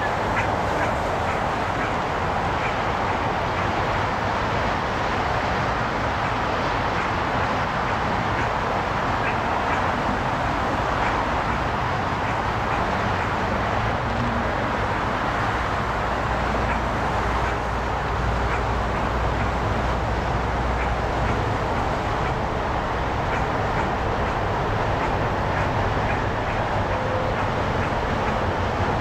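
Steady roar of traffic on an elevated freeway, an even wash of noise with a low rumble underneath that swells a little in the second half.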